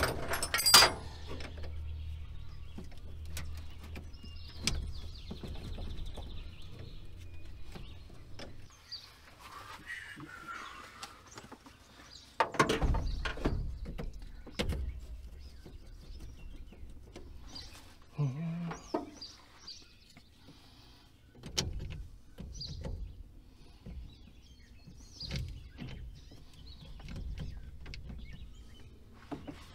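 Scattered clicks, clanks and knocks of hand work on a truck's battery terminal and jump-box clamps, with one louder knock about 13 seconds in. Birds chirp now and then.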